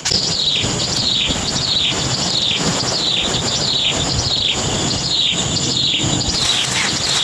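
A bird calling over and over: a high falling note, repeated roughly every half to two-thirds of a second.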